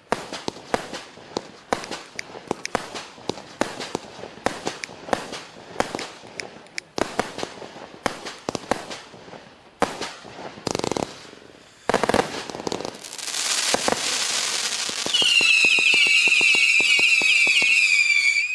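Klasek 'Fireworks show 268' firework battery firing: a rapid string of shots and crackling bursts, two or three a second. After about thirteen seconds a rising hiss builds into a loud chorus of shrill, wavering whistles, which cuts off suddenly at the end.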